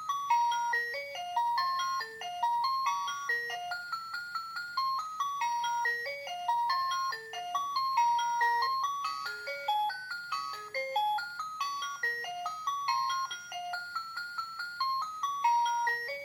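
Musical alarm of a Tik-Tak B-523 alarm clock ringing: a simple electronic melody of quick single notes played one at a time, running without a break.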